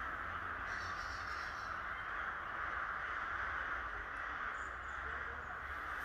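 A large flock of crows cawing together in the treetops: a dense, continuous din of overlapping calls.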